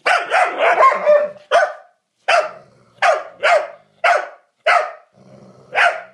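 A young dog barking: a quick run of high-pitched barks in the first second and a half, then single barks at roughly half-second to one-second intervals, with a low growl underneath just before the last bark.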